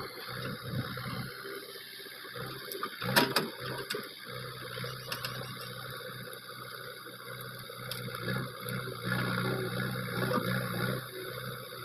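JCB 3DX backhoe loader's diesel engine running steadily while the backhoe arm and bucket work a pile of cut pomegranate branches. Scattered cracks and snaps of branches sound over the engine, the loudest about three seconds in.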